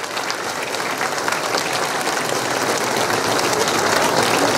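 A large crowd applauding, many hands clapping at once and swelling slightly in loudness.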